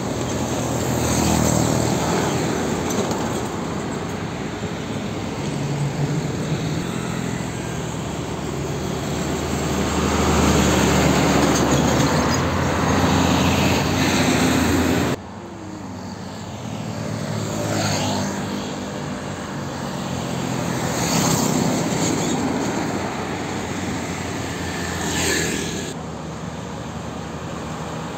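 Diesel trucks and other road traffic passing close by: heavy engine and tyre noise swelling and fading as vehicles go past. About halfway through the sound drops abruptly, and then several more vehicles pass, each rising and then falling away.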